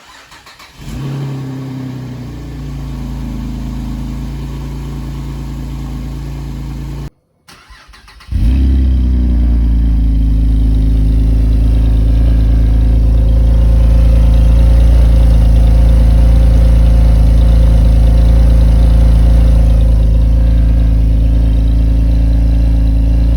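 Holden VF Commodore cold-started twice: first on its stock mufflers, cranking briefly, catching about a second in and idling steadily. After a short break it is started again on Redback sports mufflers, catching about eight seconds in and idling much louder.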